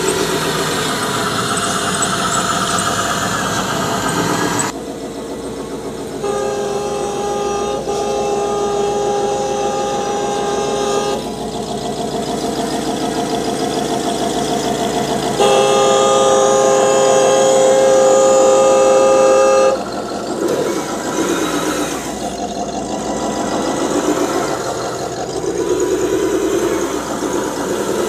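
Truck engine running, with two long blasts of a multi-tone air horn: one from about six to eleven seconds in, another from about fifteen to twenty seconds in.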